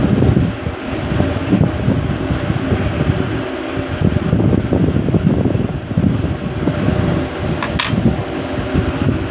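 Steady rushing of an electric fan with an unsteady low rumble. About three-quarters of the way through, a brief metallic clink as a steel combination spanner is set down among the other tools.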